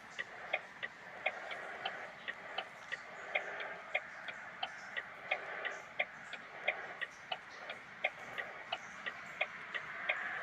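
Steady mechanical ticking, about three short clicks a second, over a faint hiss.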